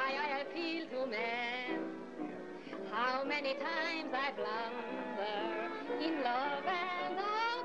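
Early sound-film soundtrack music: a woman singing with strong vibrato over band accompaniment.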